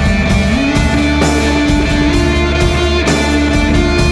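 Rock music with electric guitar over a steady beat.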